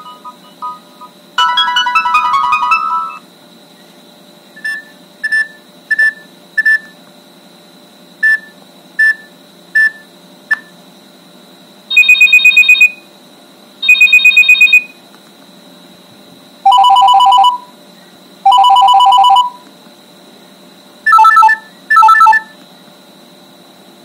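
Nokia 3650 mobile phone loudspeaker playing previews of its built-in alert tones one after another as the tone list is scrolled. A melodic MIDI ringtone fades out first. Then come two runs of short, evenly spaced electronic beeps, two bursts of a fast, high trilling 'desk phone' ring, two bursts of a lower trilling ring, and two short bursts of pips near the end.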